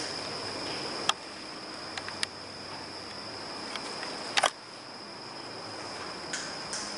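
Night insects chirring as one steady, high, thin tone. Over it come a few sharp clicks: one about a second in, two around two seconds, and a loud close pair about halfway through.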